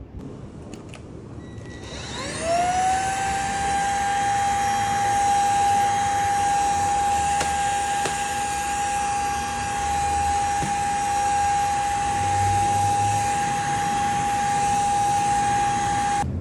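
Cordless stick vacuum cleaner switched on about two seconds in: its motor spins up in a quick rising whine, then runs with a steady high whine and airy hiss while vacuuming a tile floor, cutting off abruptly just before the end.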